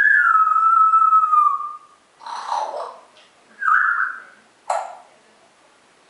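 A pet talking bird whistling: one long loud whistle that slides slightly down in pitch for nearly two seconds, then a short raspy sound, a second brief whistle, and a sharp click.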